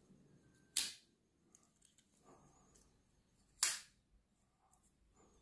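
Blade of a wooden-handled folding pocket knife snapping into place twice, about three seconds apart, each a sharp metallic click, with faint handling of the knife in between.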